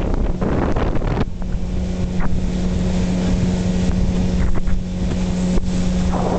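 Boat engine running at a steady pitch under way, with wind buffeting the microphone. The wind is heavy for about the first second, then the engine's steady hum stands out, and the wind picks up again near the end.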